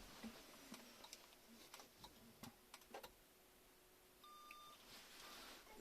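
Near silence with scattered faint clicks, and one short electronic beep about four seconds in.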